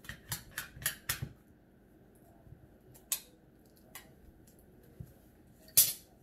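Spoons and forks clicking against plates and bowls at a meal table: a quick run of about five clicks, then a few scattered taps and one louder knock near the end.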